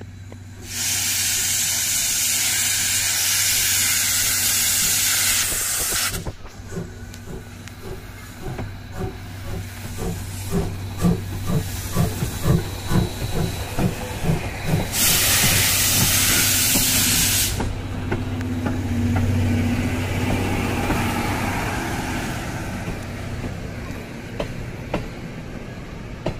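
Steam locomotive C58 363 pulling away. A loud burst of steam hiss lasts about five seconds, then the exhaust chuffs build up and quicken, and a second burst of hiss comes as the engine passes. The coaches rumble past at the end, fading.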